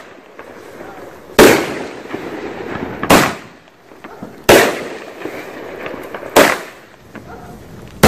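Cutting Edge 'Unleash the Power' cake firework firing: four loud bangs, about every one and a half to two seconds, each trailing off in a long echo.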